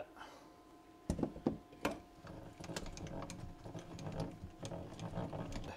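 Bevel gears on a Sanford benchtop surface grinder's vertical feed, driven by a hand-spun handwheel. A few knocks about a second in as it starts, then the gears mesh with a steady, light clicking rattle.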